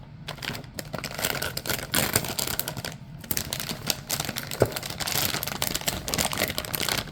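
Plastic packaging crinkling and rustling as a graphics card is unwrapped and handled, with many small clicks and taps throughout.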